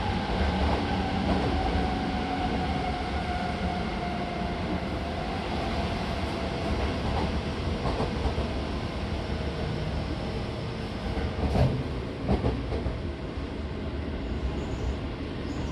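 Seibu 6000 series electric train with Hitachi GTO-VVVF traction equipment running: a steady rumble of the train on the rails with a thin whine that falls slightly in pitch over the first few seconds. A couple of short knocks come about twelve seconds in.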